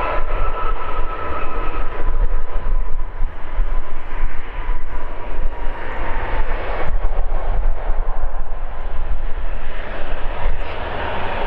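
Embraer 195's two GE CF34 turbofan engines running at taxi power as the jet turns onto the runway: a steady jet whine and rumble with a thin high tone that fades.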